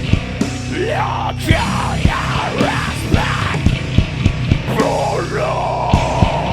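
Rock band playing a heavy, aggressive song: distorted guitar and bass over hard-hit drums, with sliding, wailing sweeps in the middle and a held, noisy note near the end.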